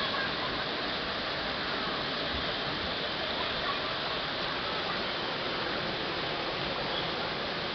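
Steady rush of water spraying and pouring from a children's water-play structure into a pool.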